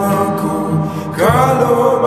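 Slowed-down, reverb-drenched Nepali pop song: a drawn-out sung line over sustained backing, with the voice gliding up in pitch a little past the middle and then holding the note.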